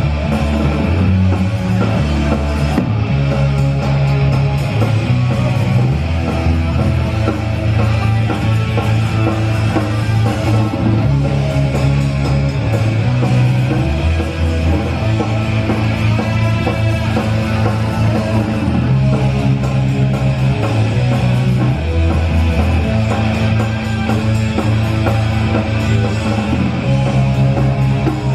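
Punk rock band playing live: loud, guitar-driven rock with a bass line that steps from note to note.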